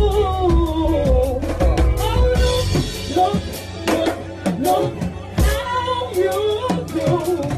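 A song: a lead singer's voice holding and sliding between notes over drums and a deep bass.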